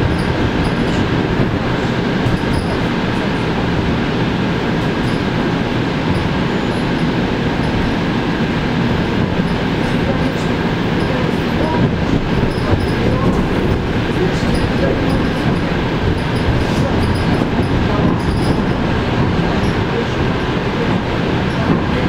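Electric train running at speed, heard from inside the carriage: a steady rumble of wheels on rails with a faint steady high tone over it.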